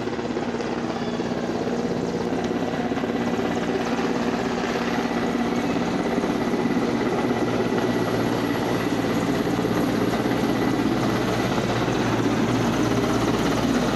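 Air Force helicopter flying low overhead, its rotor beating steadily and growing slightly louder.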